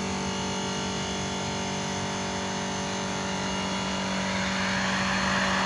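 An engine running steadily with a constant hum, and a rushing noise growing over the last second or so.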